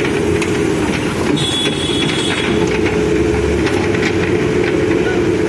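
Manitou backhoe loader's diesel engine running steadily as it works its boom, with a few light knocks over the drone.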